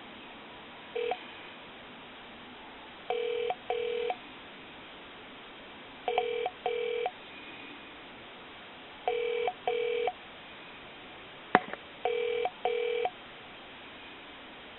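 Telephone ringback tone heard over the line while the call is being transferred: a double ring, two short tones close together, repeating about every three seconds. There is one sharp click in between.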